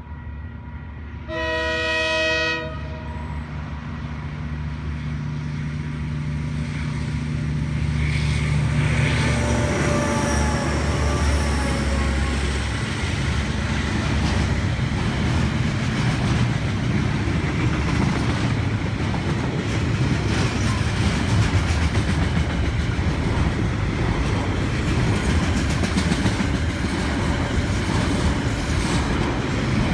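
A train sounds its horn once, a short chord of about a second, then draws near with a low engine rumble that grows louder. It then passes close by, with wheels clattering over the rail joints.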